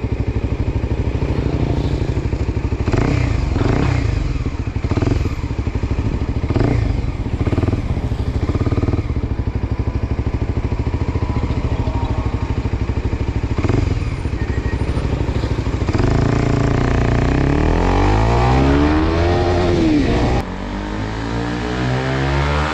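Kawasaki Ninja 250 with an Akrapovic exhaust and its dB killer fitted, running loud on a ride, the revs rising and falling as the throttle opens and closes. About 20 seconds in the sound drops abruptly.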